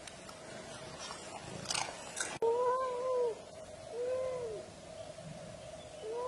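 Domestic cat meowing: a long drawn-out meow about two and a half seconds in and a shorter one about four seconds in, each rising then falling in pitch, with a third starting at the very end. Before them comes a brief scratchy rustle.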